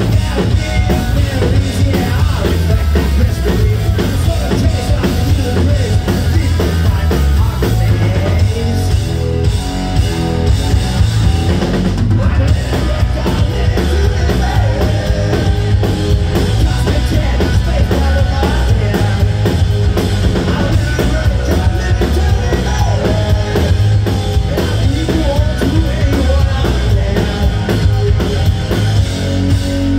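A rock band playing live: electric guitars, bass and a driving drum kit, with a lead singer singing over them, loud and steady throughout, heard from the crowd.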